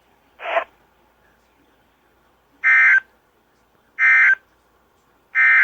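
NOAA Weather Radio EAS end-of-message signal: three short bursts of buzzing digital data tone, each about a third of a second long and about 1.3 s apart. They mark the end of the alert broadcast, here the close of the required weekly test.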